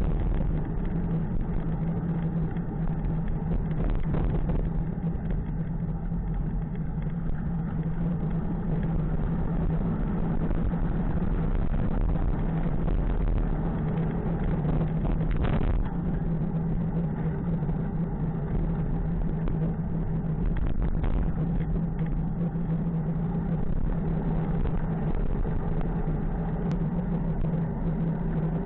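A motor vehicle engine running at a steady speed, a constant low drone, with road and wind noise. A brief knock comes about halfway through.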